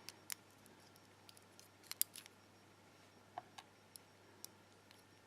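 Scattered small metallic clicks and taps from handling a disassembled pin-tumbler lock's housing and pins with tools, about ten in all at an uneven pace, the loudest a close pair about two seconds in.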